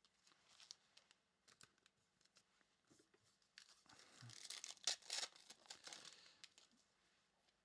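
Faint crinkling and tearing of a trading-card pack wrapper being ripped open, loudest around the middle, after a few light clicks of cards being handled.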